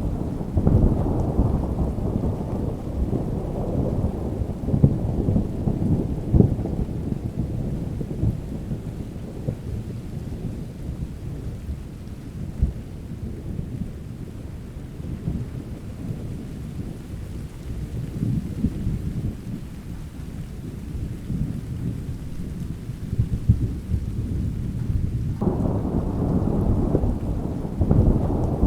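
Thunderstorm: rolling thunder rumbling over steady rain, with scattered crackles. The rumble eases off through the middle, then a new peal breaks in suddenly near the end.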